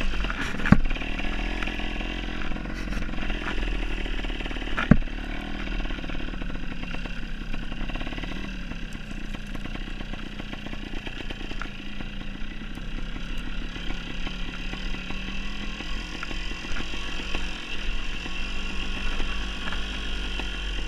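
Dirt bike engine running at low, varying revs while riding over rough ground, with sharp knocks about a second in and again near five seconds.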